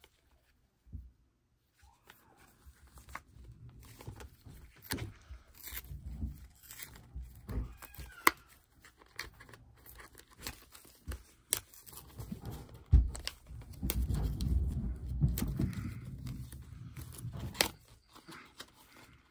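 Paper and cardboard product packaging being torn open and unfolded by hand: rustling, crinkling and scattered sharp clicks, starting about two seconds in and busiest in the second half.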